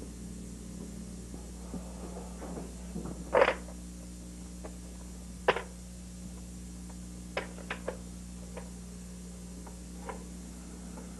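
Scattered clicks and knocks over a steady low hum, the loudest a knock about three and a half seconds in, with a quick run of small clicks a little after seven seconds.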